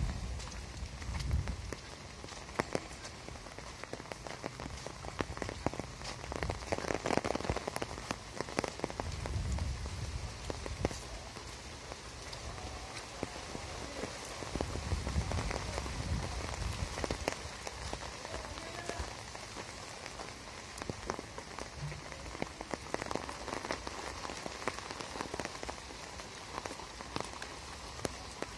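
Heavy rain falling steadily, with many sharp individual drop hits close by. A few dull low thumps come and go, about a second in, around seven to ten seconds, and around fifteen seconds.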